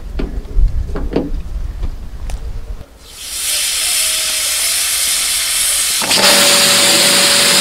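A few light knocks over a low rumble, then a pressure washer's spray hissing steadily from about three seconds in. About six seconds in it gets louder, with a steady hum joining the hiss.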